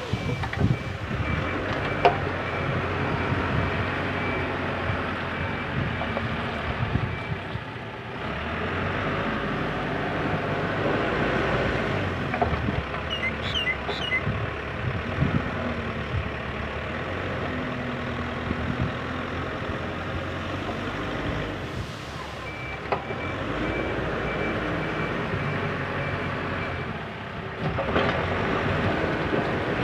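JCB 3CX backhoe loader's diesel engine running under working load, rising and falling as the machine works. Its reversing alarm beeps in a steady run at the start and again in a shorter run late on.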